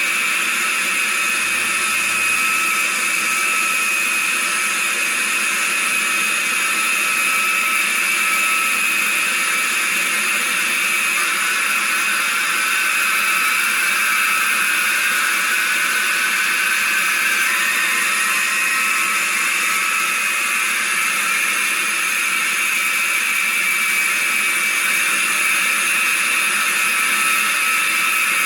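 Jet engine sound from a Model Sounds Inc sound card, played through a single transducer speaker in an RC model A-10: a steady high whine with no deep rumble, one tone rising slowly about halfway through.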